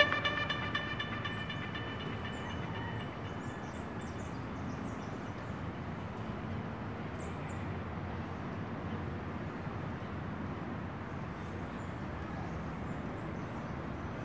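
Music fades out over the first couple of seconds, leaving steady outdoor background noise: a low, even rumble with a few faint, short, high chirps now and then.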